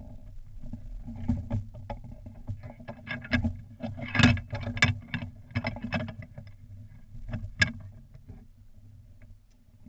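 Irregular knocks, clicks and rattles from the front of a soapbox cart being handled and worked on, close to the onboard microphone, over a low rumble. The loudest knocks come a little after four seconds and about seven and a half seconds in, and it dies down near the end.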